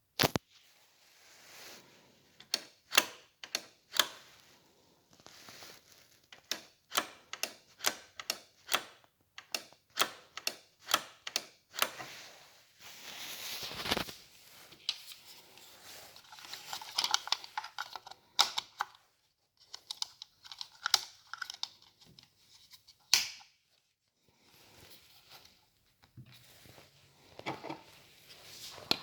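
Handling noise during an unboxing: a long series of sharp clicks and knocks, with a few stretches of rustling and crinkling, like packaging being handled.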